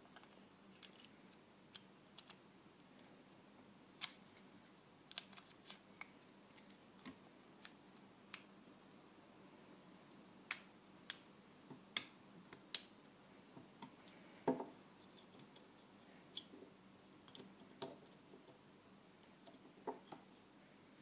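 Irregular small plastic clicks, snaps and scrapes of hands working a GoPro Hero 3 camera's battery door, battery and SD card, reseating them to cure a camera that won't power on. The sharpest snaps come about twelve to thirteen seconds in.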